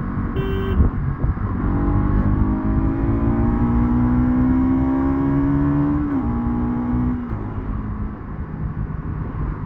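Motorcycle engine under way, its note climbing steadily as the bike accelerates, then dropping at a gear change about six seconds in and easing off a second later, over steady wind and road rumble.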